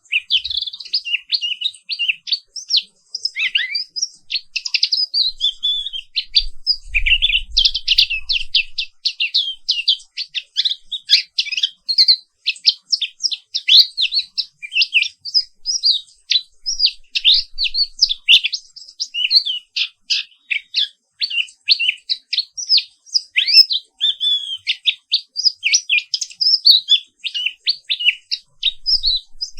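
Pleci Papua white-eye singing a fast, continuous, high twittering song of rapid chirps and warbles that rolls on with barely a pause.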